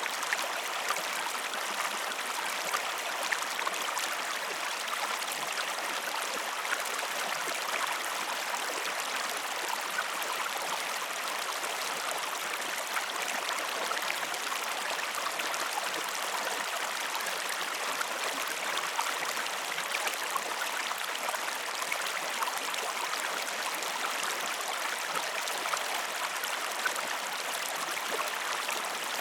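Steady flowing water with light trickling: an even, unbroken rushing hiss.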